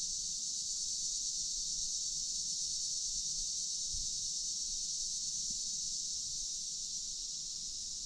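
Steady, high-pitched chorus of night insects such as crickets, running evenly without a break.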